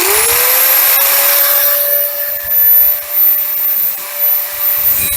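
Angle grinder spinning up with a rising whine right at the start, then running at a steady pitch as its cut-off wheel cuts through metal, the noise swelling and dipping with the load.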